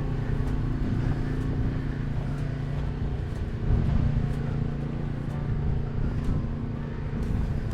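A motor vehicle's engine running steadily with a constant low hum, over a rumbling background.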